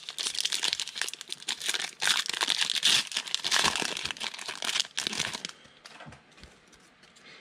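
Foil trading-card pack being torn open and crinkled by hand. The crinkling dies away after about five and a half seconds.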